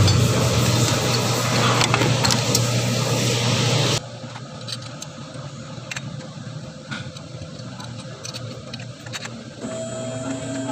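A steady low mechanical hum, like a machine or engine running in the workshop, that cuts off abruptly about four seconds in. After it comes a quieter background with a few light metallic clicks and taps from hands on engine parts. A steady electrical hum tone comes in near the end.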